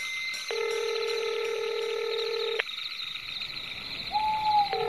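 Telephone ringback tone: a phone call ringing out unanswered, with a steady tone lasting about two seconds, a two-second pause, then the next ring starting near the end. Under it runs a constant high chirring, and a short falling call comes just before the second ring.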